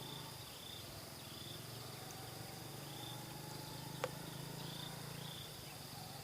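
Insects chirping in the background: a steady high trill with short chirps repeating every half second to second, over a low drone that fades out about five and a half seconds in. One sharp click about four seconds in.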